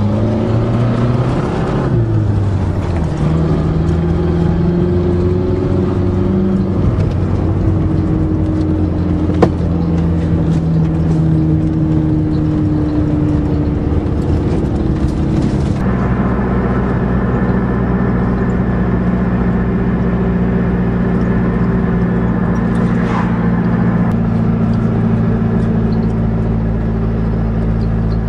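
Car engine running under load while pulling a loaded trailer, its pitch shifting and gliding over the first half, with a sharp click about nine seconds in. About halfway through the sound changes abruptly to a steady, even engine note.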